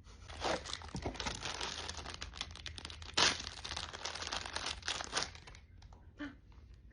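Plastic blind-box packaging crinkling and tearing as a Labubu figure is unwrapped by hand, with a loud rip a little after three seconds; the crinkling dies down in the last couple of seconds, leaving a few small clicks.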